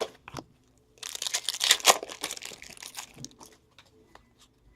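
Foil wrapper of a hockey card pack being torn open and crinkled: a couple of light clicks, then about two seconds of crackling and tearing from about a second in, tapering off.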